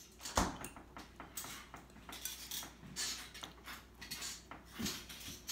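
Metal fork clinking and scraping against a glass bowl of pasta, a run of short clicks with a sharp clink about half a second in.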